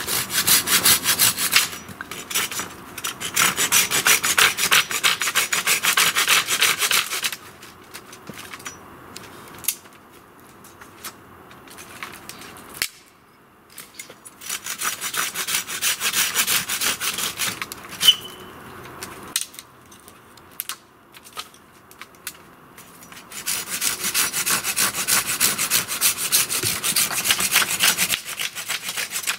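Folding pruning saw cutting through thin wooden poles with quick back-and-forth strokes, in three spells of several seconds each with pauses between.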